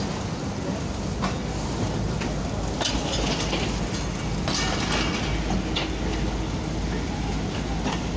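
Railway passenger coaches rolling along yard track: a steady rumble of wheels on rail, with irregular clicks and knocks as the wheels cross rail joints.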